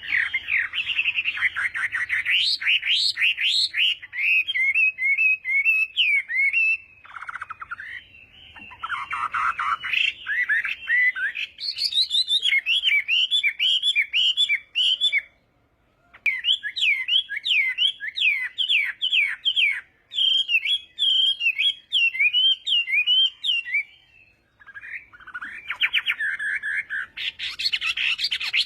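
Chinese hwamei singing a loud, varied song of rapid, repeated whistled phrases, breaking off briefly twice.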